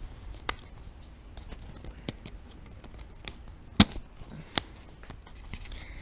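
Scattered sharp clicks and taps of small plastic RC parts and leads being handled, with the loudest click a little before four seconds in and another shortly after.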